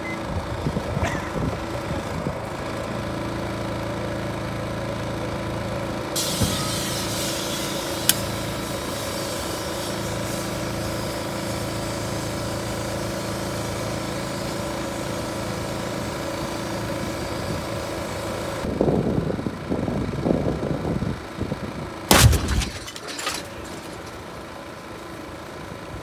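A portable generator running steadily under the microwave's load, then near the end a loud bang as the gas canister inside the burning microwave bursts, followed by a smaller crack about a second later.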